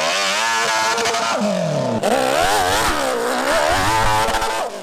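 Hero Splendor motorcycle's single-cylinder four-stroke engine, revving up and down over and over as the rider works the throttle on rough ground, with an abrupt break about two seconds in.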